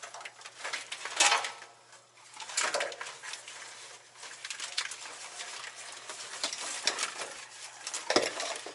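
Irregular clinks, clatters and rustles of parts being handled during truck repair work, over a faint steady low hum.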